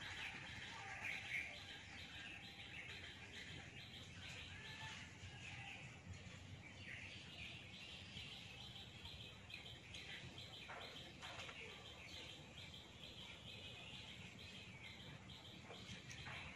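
Faint outdoor chirping: a high chirp repeating evenly about three times a second, with a few other scattered calls.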